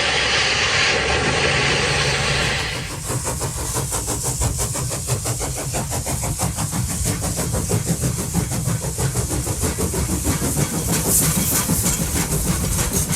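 Steam locomotive: a loud hiss of steam for the first few seconds, then a fast, steady chuffing clatter over a low rumble as the train runs.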